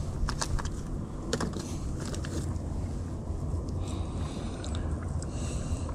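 Steady low rumble of wind on the microphone, with a few small clicks and rustles as hands thread a piece of bait shrimp onto a fishing hook.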